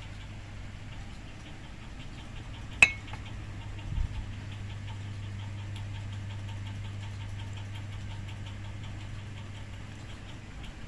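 A steady low machine-like hum, with one sharp ringing clink about three seconds in and a dull low thump about a second later; faint rapid ticking runs under the hum from then on.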